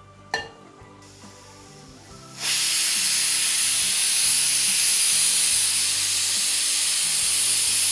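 Pressure cooker whistling: a loud, steady hiss of steam venting through the weight valve that starts about two and a half seconds in, one of the whistles counted to time the cooking. A short knock comes just before, as a pan is set on the gas burner.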